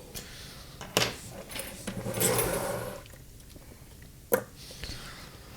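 Workbench handling sounds: a sharp click about a second in, a brief rustle, then another sharp click, as a small circuit board and tools are handled and set in place.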